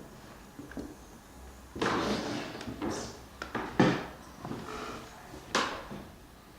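A run of knocks and clatters, like hard objects being handled and set down, with several sharp knocks in the middle and one more near the end.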